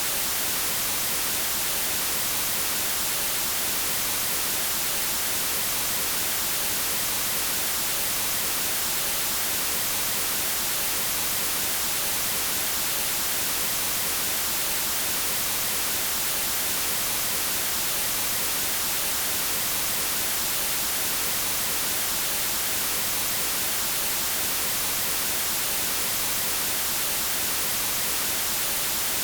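Steady white noise test signal at about −20 dBFS, a constant even hiss with no change, used for calibrating audio equipment.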